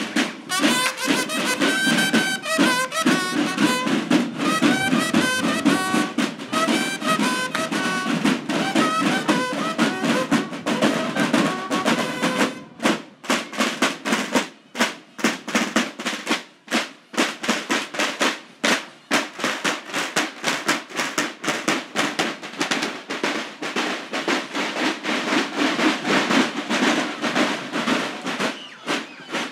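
Brass band music: trumpets playing a melody over snare and bass drums. About twelve seconds in, the brass stops and the drums carry on alone with a fast, steady snare beat.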